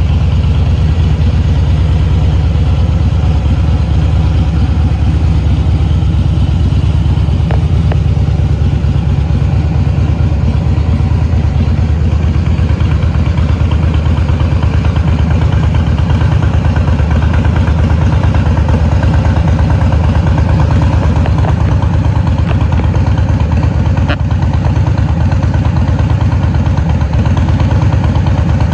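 Harley-Davidson Fat Boy's air-cooled V-twin idling steadily through Vance & Hines exhaust pipes with no catalytic converter.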